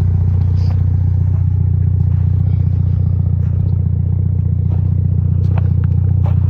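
Mini Cooper S Clubman's swapped-in turbocharged four-cylinder engine running steadily at a constant speed, a smooth, even hum with a few faint ticks.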